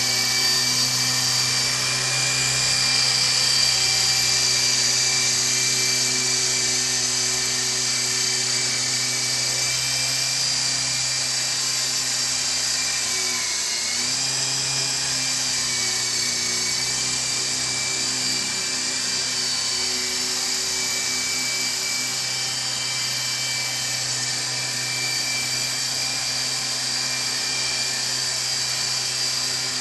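Nano Lama electric RC helicopter flying: a steady high-pitched whine from its motors and spinning rotors, dipping briefly in pitch about halfway through before settling back.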